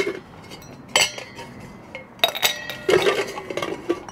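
Ice cubes dropped by hand into a stemmed wine glass: a few sharp clinks, one about a second in and two close together a little after two seconds, the glass ringing briefly after them.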